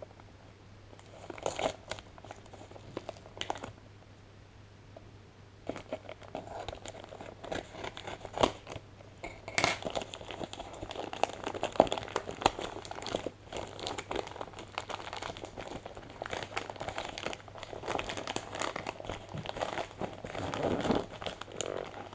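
Plastic poly mailer bag being crinkled and torn open by hand. A few short rustles come first, then dense, irregular crinkling and tearing from about six seconds in.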